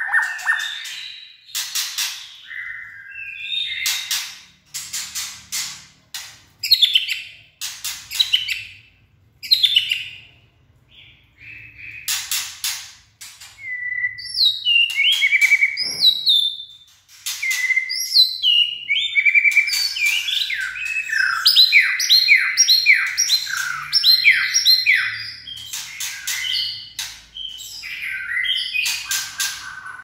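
Caged male white-rumped shama singing loudly: sharp clicking, rattling notes mixed with clear whistled phrases, turning in the second half into a rapid run of short descending whistles, several a second.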